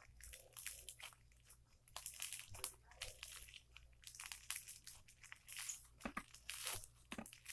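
Slime being squeezed and poked by hand, giving off irregular crackles and small pops.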